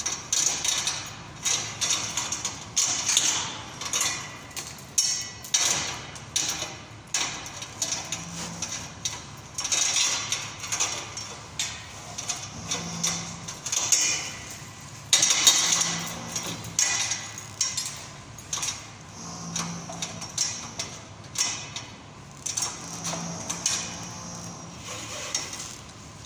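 Portable electric drill chain-clamped to a steel pipe, cutting a hole into it. The cutter grinds and scrapes in uneven bursts about once a second as it is fed into the metal.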